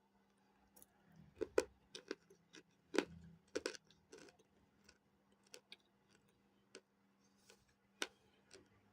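Hard baked cornstarch chunks being bitten and chewed: a run of sharp, irregular crunches and cracks, the loudest about one and a half and three seconds in.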